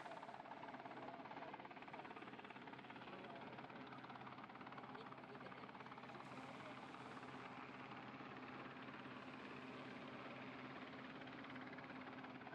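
Sea King helicopter hovering: steady rotor and turbine noise with a low hum running through it.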